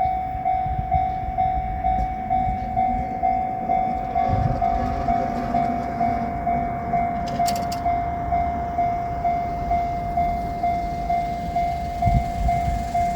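Japanese level-crossing warning bell ringing in an even, repeating rhythm, a little under two rings a second, with a low rumble underneath.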